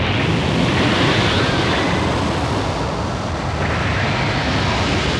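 Anime sound effect: a loud, steady rushing roar, like jet wash or a gale, that starts abruptly and holds without a break.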